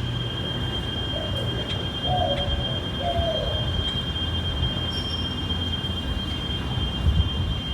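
A steady high-pitched whine over a low rumble, with a few short faint chirp-like sounds about half a second, two seconds and three seconds in.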